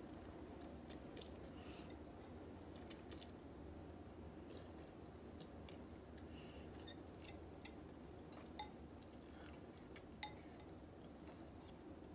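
Faint eating sounds: instant ramen noodles slurped and chewed from a bowl, with soft clicks throughout and two small ringing clinks of a utensil against the bowl past the middle.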